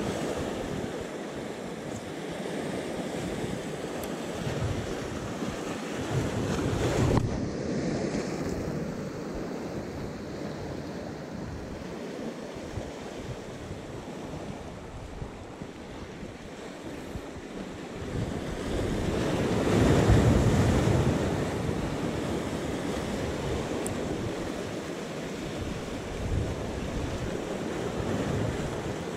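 Sea surf washing and breaking against concrete breakwater blocks, with wind buffeting the microphone. The surf swells about a quarter of the way in and again, louder, about two-thirds of the way through.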